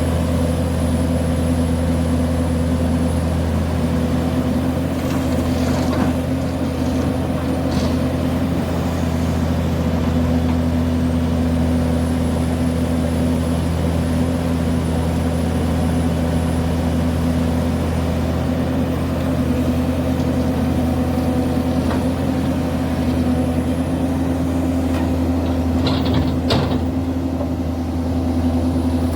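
Link-Belt excavator's diesel engine running steadily at a constant speed, with a few brief sharp knocks, once about six seconds in, again about two seconds later, and again near the end.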